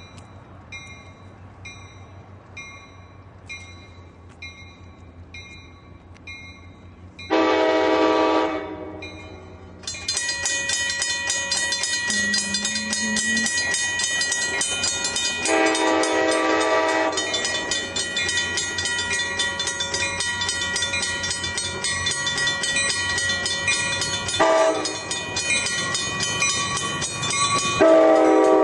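Commuter train horn sounding for a grade crossing as an Altamont Commuter Express cab car approaches: one long blast about 7 seconds in, another a little past halfway, a short one later and a loud one at the end as the train arrives. Under it, railroad crossing bells ring at a steady beat, faint at first and much louder from about ten seconds on.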